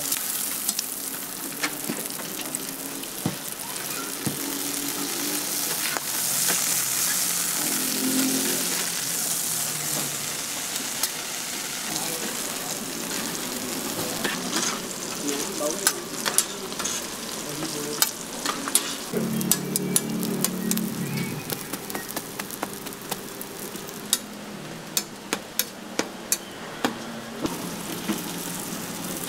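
Food frying on a flat steel street-stall griddle: a steady sizzle, with sharp clicks and scrapes of metal utensils against the steel, and a quick run of clicks near the end.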